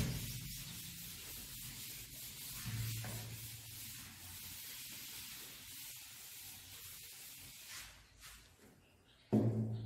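Chalkboard eraser wiping chalk writing off a board, a steady rubbing hiss that stops about eight seconds in.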